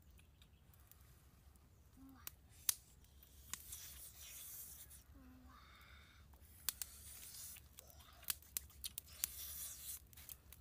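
Small wood fire crackling with scattered sharp pops and snaps, several close together in the second half, over a faint hiss.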